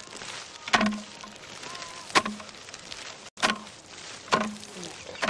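Wooden digging stick thudding into garden soil: four strokes, about one every second and a half.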